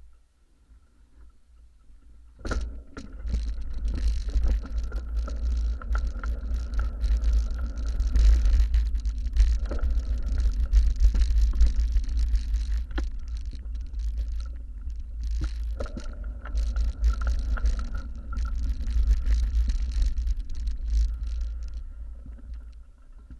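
Noise aboard a roll-on/roll-off car ferry under way: a heavy, fluctuating rumble with a rushing hiss over it. It comes in suddenly about two seconds in, with a faint steady whine underneath.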